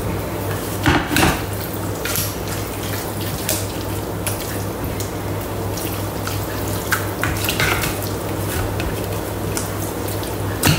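Thermomix spatula pressing and scraping raw mince in the stainless steel mixing bowl, breaking up the lumps: a string of wet squishing and scraping strokes over a steady low hum.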